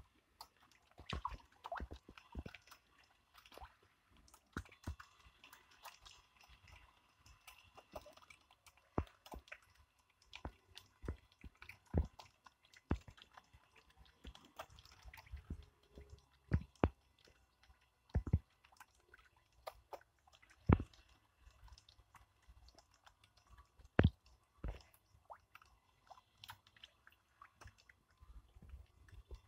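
Fish taking floating pieces of bread at the water surface, with irregular smacking and slurping pops from their mouths. Several louder smacks stand out among many small ones.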